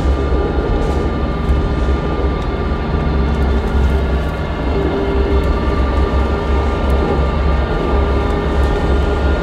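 Inside a 2012 New Flyer C40LF transit bus under way: its Cummins Westport ISL G natural-gas engine and Allison B400R transmission run with a steady low hum and a few steady higher tones over the road noise.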